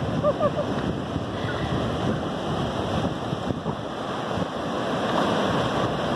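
Ocean surf washing onto a shallow sandy beach, a steady rush of breaking waves, with wind buffeting the microphone.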